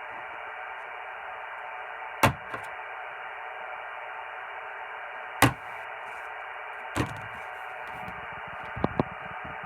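Radio receiver static: a steady hiss on an open channel, broken by a few sharp pops about two, five and seven seconds in and a quick double click near the end.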